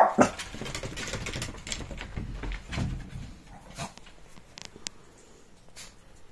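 Shih Tzu giving a short bark, then a busy patter of dog claws clicking and scuffling on a wooden deck for about four seconds, thinning to a few odd clicks.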